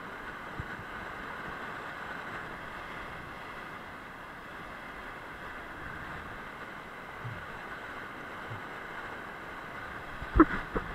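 Steady rush of white water pouring down a waterfall. A sudden loud knock-like sound comes near the end.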